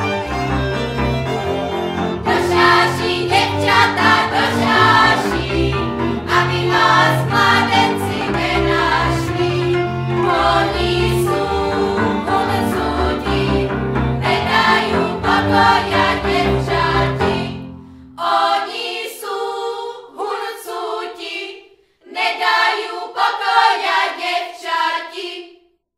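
Moravian folk song sung by a group of voices over a fiddle-led string band with a bass. About three-quarters of the way through the bass and accompaniment drop out, and the voices sing on alone in short phrases before stopping.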